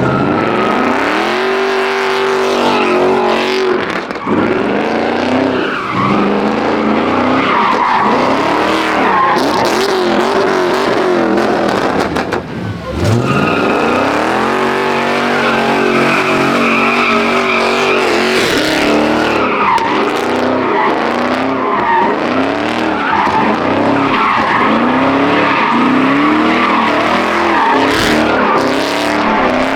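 A muscle car doing a burnout: the engine revs up and down over and over against continuous tyre squeal. About twelve seconds in the revs drop briefly, then climb again.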